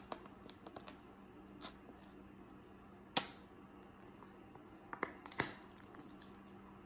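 Aluminium beer can being handled for shotgunning: small taps and clicks of fingers on the can, a sharp click about three seconds in as the side of the can is pierced, then a cluster of clicks ending in a short crack and hiss as the tab is popped open just before drinking.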